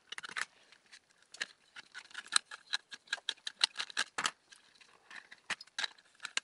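Screwdriver turning out the small screw that holds a power transistor to its heatsink on a TV power-supply board: a run of small, irregular clicks and ticks, several a second.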